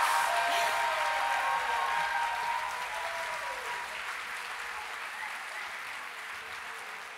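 Audience applauding at the end of a song, the clapping dying away steadily. The last held notes of the music fade under it during the first few seconds.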